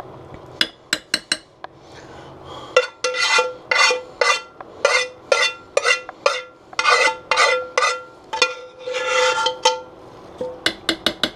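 A metal utensil scraping the last of the sauce out of a skillet: a fast run of scraping strokes, two or three a second, with the pan ringing on each stroke. A few light clicks of metal on metal come before the scraping and again near the end.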